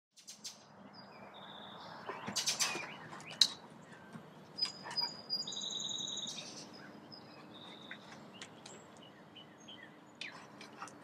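Small birds chirping and trilling, with a few sharp clicks or knocks in the first few seconds and a faint low hum underneath.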